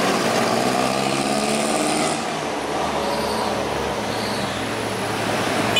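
Steady road traffic noise, with a motor vehicle's engine running close by.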